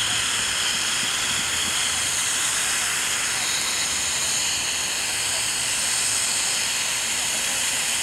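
Firework fountain spraying sparks with a steady hiss.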